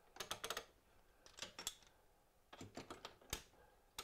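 Light clicks and clatter of small workshop tools being set down and hung on a wall rack, in three short clusters with one sharper knock near the end.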